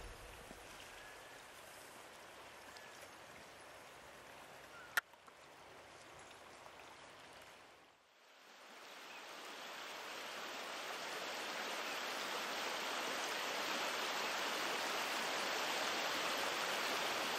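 Fast-flowing river water rushing in a steady hiss. It is faint at first, then swells in about halfway through and holds steady. A single sharp click comes about five seconds in.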